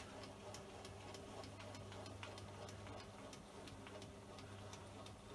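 Milling machine with an end mill cutting a gib strip: a steady low hum with a light, regular ticking of about four ticks a second.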